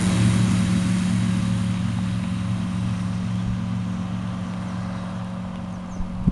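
IBIS Magic GS-700 light aircraft's propeller engine at takeoff power, a steady drone that fades gradually as the plane rolls away and lifts off.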